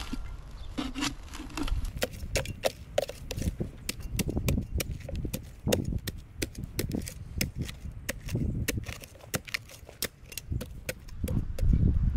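Shovel digging by hand in red clay soil, the steel blade scraping and chopping into the dirt with many irregular sharp ticks and scrapes.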